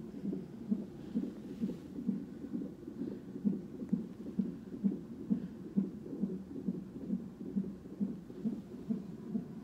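Fetal heartbeat from a Doppler fetal monitor's loudspeaker: a steady, rapid whooshing pulse of about two and a half beats a second, a normal-range fetal heart rate.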